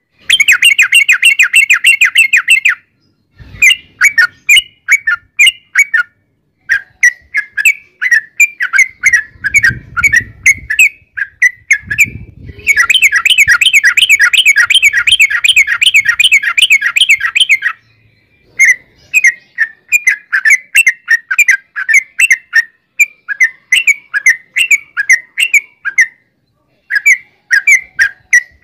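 Yellow-vented bulbul (trucukan) singing: long, fast rolling trills alternating with runs of short bubbly chattering notes, the longest trill running from about 13 to 18 seconds in.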